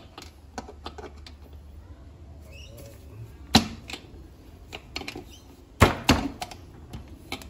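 A screwdriver clicking and scraping against a Briggs & Stratton engine block and its loose piston as the piston is pried out of the bore. There is a sharp metal knock midway and two more about two seconds later.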